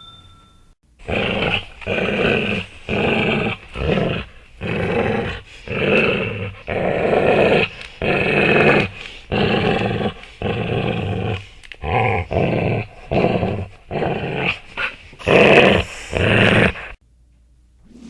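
A dog growling: a long run of short, rough growls, each lasting under a second, following one another with brief pauses in between.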